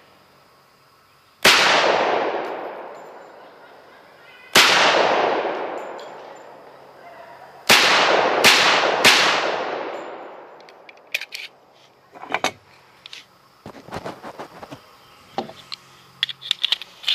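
Sig Sauer 1911 Fastback Nightmare pistol fired five times, each shot trailing off in a long echo: three shots a few seconds apart, then two quick ones, while a new pistol is being broken in. Then small metal clicks and clacks of the empty magazine being dropped and a fresh one being seated.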